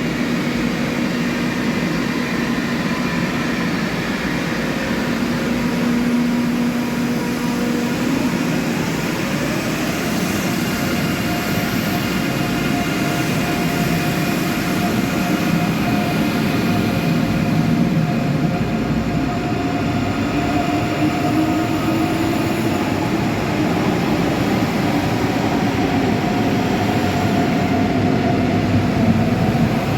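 A train moving through a station, a steady rumble with machinery tones held under it; one tone rises in pitch about ten seconds in, and another rises and falls about two-thirds of the way through.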